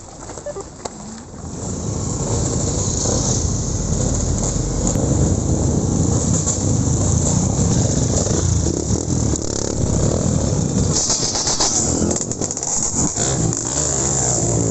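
Off-road trail motorcycle running as it rides along, a steady low engine rumble with wind noise on the microphone.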